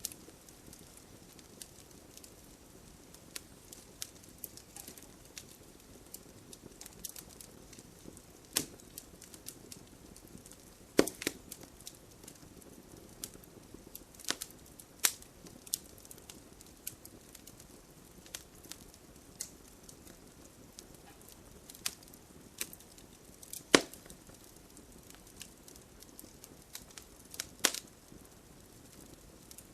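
Wood fire burning in a fireplace: a soft steady hiss under irregular crackles and sharp pops, the loudest pops about 11 and 24 seconds in.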